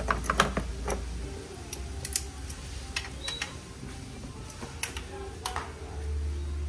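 Scattered light clicks and metallic clinks of tools and small parts being handled, over a faint low hum that grows a little near the end.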